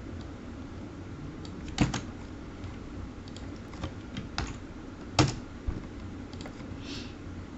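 Computer keyboard keystrokes, scattered and irregular rather than a fast run, with a few louder key hits, over a steady low hum.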